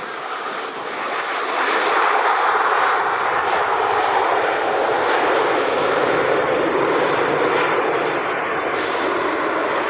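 Airliner's engines running loud: a steady roar that grows over the first two seconds, then holds level.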